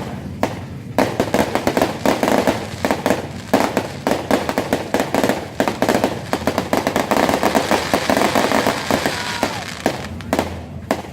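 Fireworks going off in a dense, rapid stream of cracks and bangs, many a second, busiest through the middle of the stretch and thinning near the end.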